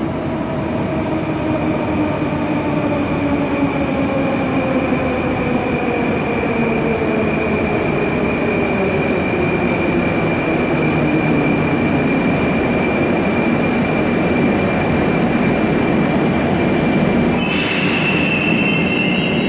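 Moscow metro train pulling into the platform and braking to a stop: a loud rumble of wheels on rail, with a motor whine that falls steadily in pitch as the train slows and a steady high squeal. A sudden sharp sound comes near the end as it comes to a halt.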